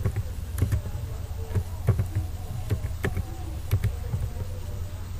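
Computer keyboard keys clicking as a few characters are typed slowly and unevenly, over a steady low hum.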